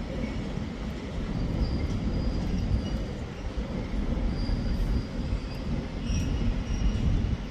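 Container freight train rolling past: a steady rumble of wagons on the rails, with thin high-pitched squeals coming and going.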